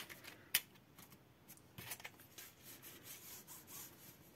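A wooden craft stick rubbed over card stock to press a paper piece flat, a series of soft, faint scraping strokes. A single sharp tap comes about half a second in.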